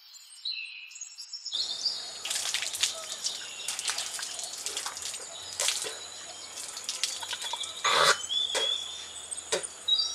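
Outdoor ambience: birds giving short whistled chirps over a steady high insect drone, with a scatter of sharp clicks and knocks, the loudest about eight seconds in.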